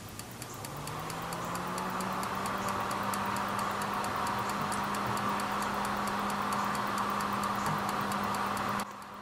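Franklin Ace 100 switching power supply powered up with no load, ticking steadily several times a second as its protection circuitry cycles it on and off: the expected sign of a working supply with nothing connected. Its cooling fan spins up over the first second and runs with a steady hum, and everything cuts off suddenly near the end.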